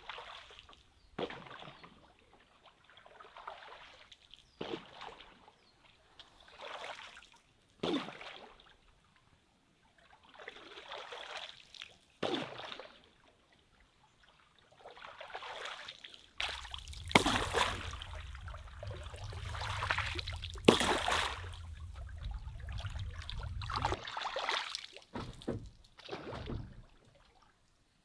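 A bamboo raft being poled across still water: water sloshing and trickling off a long pole in separate strokes every few seconds, several starting with a sharp knock. A low rumble runs under the strokes through the middle of the stretch.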